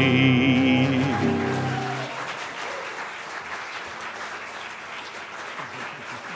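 The song's last chord, with acoustic guitar, rings out and fades away about two seconds in; then an audience applauds.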